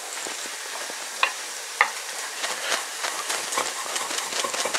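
Chicken breast sizzling steadily on a hot grill pan, while a chef's knife knocks twice on a wooden chopping board and then chops spring onion in quick strokes from about halfway in.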